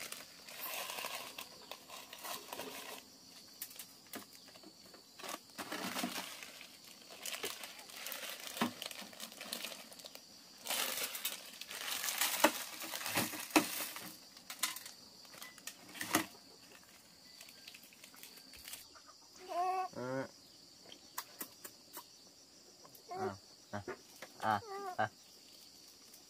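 Packaging crinkling and rustling in irregular bursts as it is handled. Near the end come a few brief high-pitched vocal sounds.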